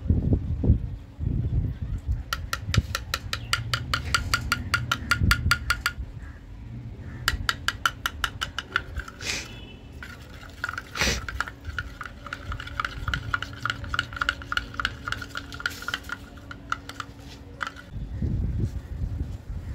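Metal spoon stirring a clear slime mixture in a glass dish, scraping and clicking against the glass in quick runs of strokes, over a low rumble.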